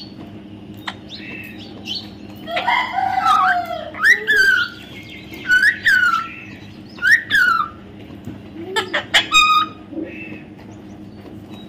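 A parrot calling in about four bouts of squawks and chirps with falling whistled notes. The last bout is a fast rattle of short notes.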